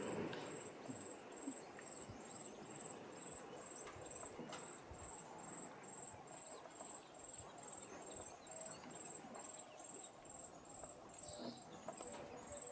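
African elephants wading in a water hole, water splashing and sloshing around them, loudest right at the start. Over it an insect chirps steadily in a high, even pulse about three times a second.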